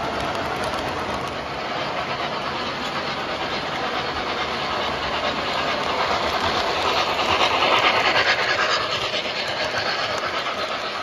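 O-scale model freight train running on the track, with a smoking model steam locomotive and its cars rolling past. The sound is steady and swells loudest about two-thirds of the way through, as the locomotive passes close by.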